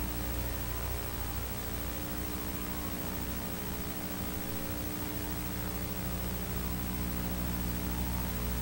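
Steady electrical mains hum with hiss and a thin high whine: the noise floor of an analog video recording, with no other sound.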